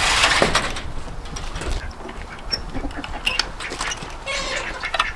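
Ducks quacking among farmyard rustling and clicking noises, with a loud hissing rustle right at the start.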